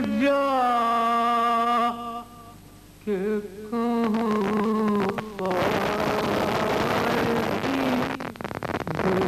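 A man's voice chanting a noha lament in long held notes. It breaks off about two seconds in and resumes about a second later. From about halfway, a loud hiss and crackle of tape noise covers the singing for a few seconds, the sign of a worn VHS transfer.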